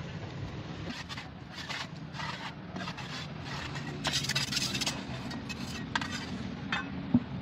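Steel trowel scraping cement mix across the top of a metal tile mould in a series of short strokes, the longest about four seconds in. A sharp knock near the end.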